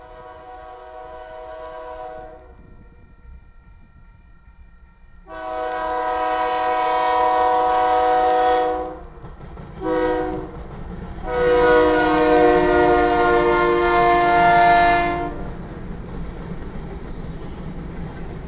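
Air horn of a Union Pacific GE AC44CW-CTE locomotive leading a freight train, sounding several notes at once. It plays the grade-crossing signal: the end of one long blast, then long, short and a final long blast ending about fifteen seconds in. After the horn comes the steady rumble of the locomotives passing over the crossing.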